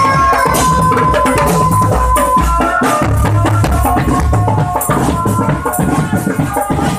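Marching drum band playing: snare and tenor drums, cymbals and bass drums beating together under a held melody line. The bass drum beats are heaviest about two to three seconds in.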